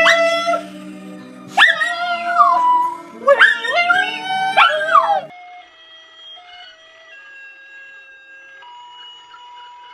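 A dog howls about four times, each howl rising and falling in pitch, over low steady notes. Near the middle it cuts off suddenly and a simple melody of held single notes plays.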